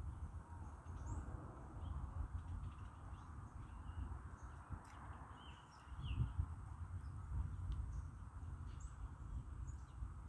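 Scattered short bird chirps over a fluctuating low rumble of wind on the microphone.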